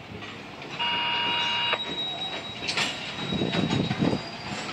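Covered hopper cars of a CPKC grain train rolling past. A harsh, high squeal lasts about a second, starting near one second in. A thin high wheel squeal then carries on while the wheels set up a run of low knocks in the second half.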